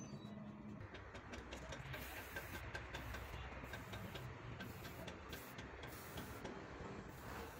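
Aerosol spray-paint can hissing in a run of short bursts as silver paint goes onto the radiator core, with light clicks starting about a second in.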